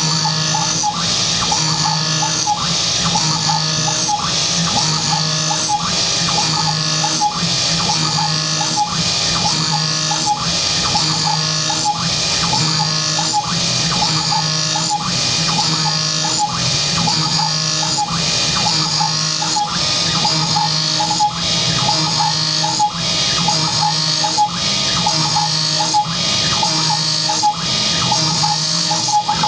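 Small CNC milling machine cutting a pocket with a 12 mm carbide end mill at 3000 RPM on an adaptive trochoidal toolpath: spindle and axis motors whine, and the cutting sound swells and eases about once a second as the cutter loops in and out of the material.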